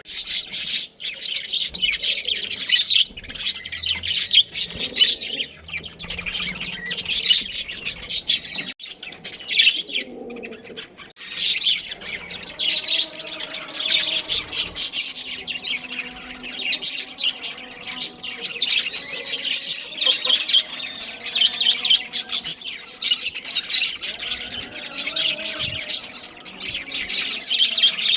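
Budgerigars chirping and chattering busily and continuously, many quick high chirps overlapping.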